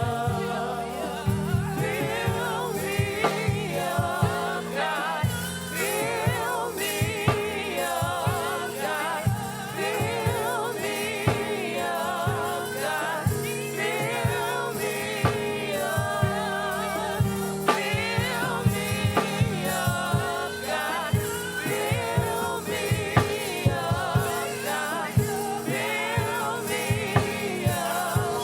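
Gospel worship music: a choir singing with vibrato over a live band with bass and drum kit keeping a steady beat.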